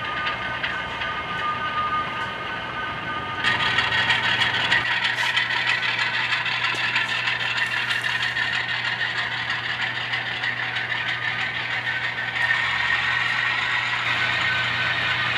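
Model freight train running on the layout track, a steady mechanical rattle and clatter of wheels and cars, louder from about three and a half seconds in.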